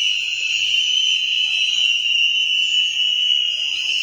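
A crowd of hundreds of students blowing cheap plastic whistles at once: one loud, shrill, steady tone with no gaps.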